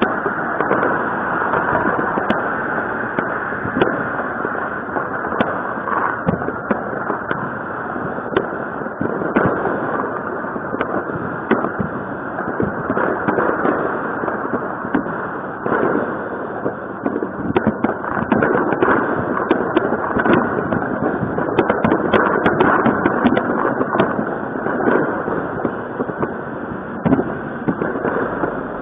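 Many fireworks and firecrackers going off at once: a continuous crackle of overlapping bangs and pops with no break, thickest a little past the middle.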